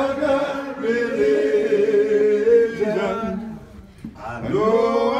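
Slow a cappella singing of a spiritual, with long held notes; the singing breaks off a little after three seconds and comes back in with a rising phrase near the end.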